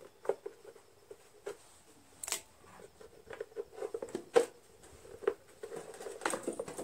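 Hands handling wiring on a lawn tractor's plastic body: irregular light clicks, taps and rustles of wire, plastic and jacket cloth, the sharpest tap about four seconds in.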